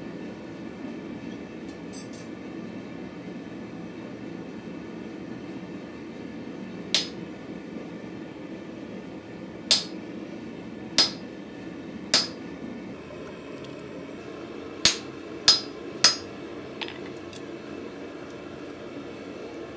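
Hand hammer striking a chisel held on a red-hot mild-steel bar on the anvil, cutting chiseled decoration: seven sharp, ringing metal-on-metal blows at uneven intervals, starting about a third of the way in, with a lighter tap after the last. A steady roar from the gas forge runs underneath.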